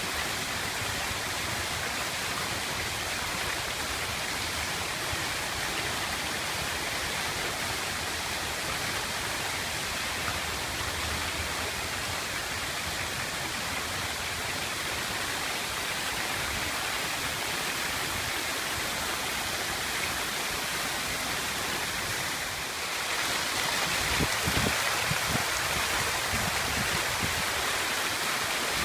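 Water-wall fountain: a sheet of water falling from a ledge into a shallow basin, a steady splashing rush. It grows a little louder about two-thirds of the way through.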